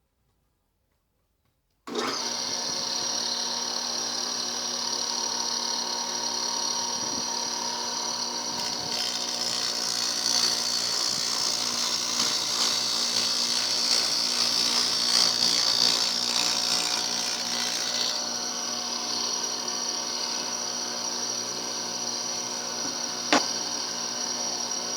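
Table saw running with a sandpaper-faced disc on its arbor, grinding a planer knife: a steady motor hum under a high abrasive hiss. It starts suddenly about two seconds in, the grinding hiss is denser through the middle, and there is one sharp click near the end.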